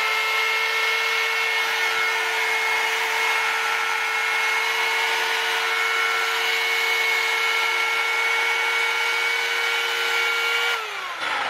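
Electric chainsaw running flat out with a steady high whine while its built-in sharpening stone is pressed against the moving chain, grinding the dulled cutters with a hiss. Near the end the motor is released and winds down, its pitch falling.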